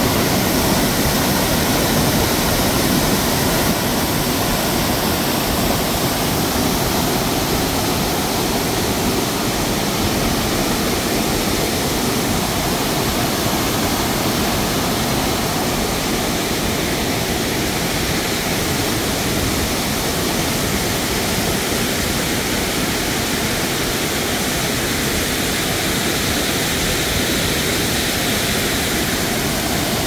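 Small waterfall on a rain-swollen mountain stream: white water pouring over rocks in a loud, steady rush.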